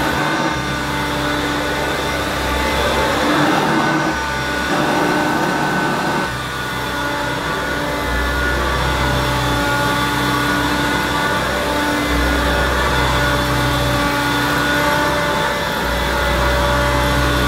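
Hoover Turbomaster 1980s upright vacuum cleaner running steadily with its brush roll turning as it is pushed and pulled across carpet, with a low rumble that comes and goes every few seconds with the strokes.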